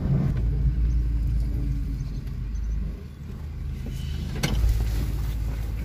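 Low rumble of a car driving slowly, heard from inside the cabin; it dips briefly about halfway through and picks up again.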